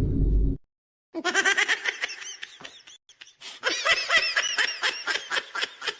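A laughing sound effect: a high-pitched laugh in rapid, rhythmic bursts that quicken in the second half. It is preceded by the tail of a deep rumbling effect that cuts off about half a second in.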